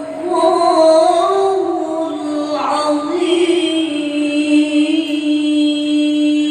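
A single voice chanting a melismatic phrase with winding turns, then settling about halfway through into one long held note.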